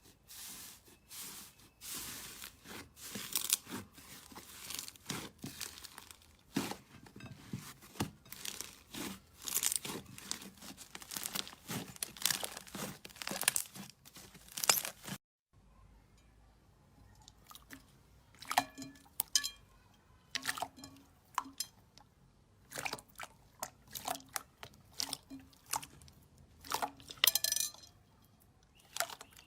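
Slime being squeezed and pressed by hand, a dense run of crackling, crunching pops. After a brief cut about halfway, the pops come sparser and sharper.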